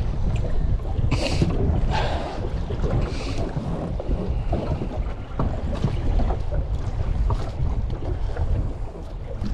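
Wind buffeting the microphone in a small boat at sea, a steady low rumble, with water washing against the hull a few times in the first three seconds and occasional light knocks.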